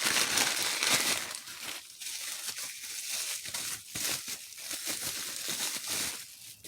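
Plastic packaging crinkling and rustling as it is handled, loudest in the first couple of seconds and then continuing more unevenly.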